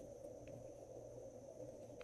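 Near silence: a steady low background hum, with one faint tick about half a second in.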